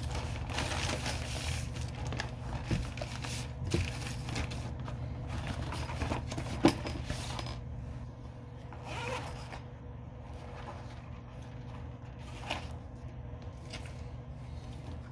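A plastic poly mailer being ripped open and rustled, with a few sharp clicks, the loudest about six and a half seconds in. After that comes softer crinkling as a clear vinyl bag and a card are handled.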